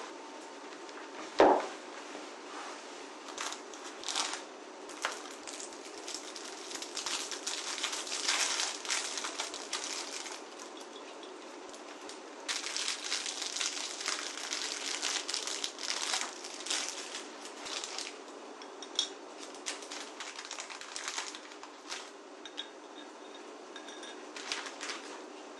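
Household handling sounds: a single sharp knock, then scattered clicks and stretches of rustling and scraping as objects are handled, over a steady low room hum.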